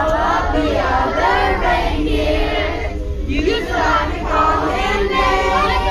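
Several voices singing a song together over backing music.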